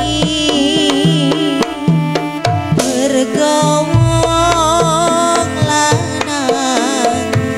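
Reog gamelan accompaniment: hand drums and repeating low gong notes under a wavering, pitched melody line.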